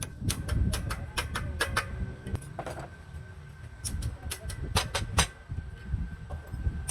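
Irregular sharp metallic clicks and knocks, several to a second with short gaps, from metal tools and parts being handled and tapped during work on a truck clutch, over a low background rumble.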